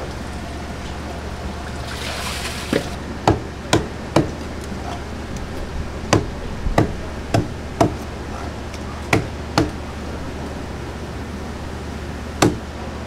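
Knife hitting a cutting board as a mullet fillet is trimmed for sashimi: about a dozen sharp knocks, irregularly spaced and often in pairs. A brief hiss comes about two seconds in, over a steady low hum.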